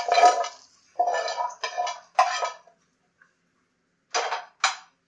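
Metal spoon stirring in a stainless-steel bowl, scraping and clinking in short strokes about two a second, mixing a hot tempering of fried red chillies and curry leaves into coconut chutney. The stirring stops after a couple of seconds, and two more quick clinks of utensils come about four seconds in.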